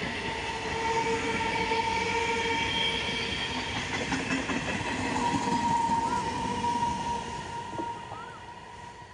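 Electric multiple unit (EMU) local train running past, its rumble carrying a steady high whine. The sound falls away noticeably about eight seconds in.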